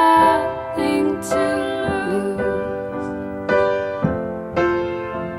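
Slow piano music: chords struck roughly once a second, each left to ring out.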